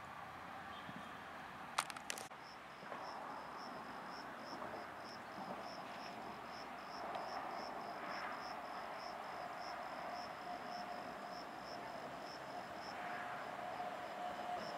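A high, even chirping at about four pulses a second, typical of a cricket, starts just after a couple of sharp clicks about two seconds in. Under it, a faint steady hum from the approaching electric passenger train grows from about seven seconds in.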